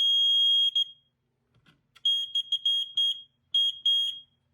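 Hoover E8034 smoke alarm's horn sounding a loud, continuous high-pitched tone that cuts off just under a second in. From about two seconds in it sounds again in a run of short, choppy bursts, with two more short blasts near the end.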